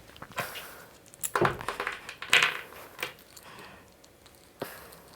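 Hands working a metal connector and a speaker cable: short scrapes, rustles and small metallic clicks, busiest in the first three seconds, with a single sharp click near the end.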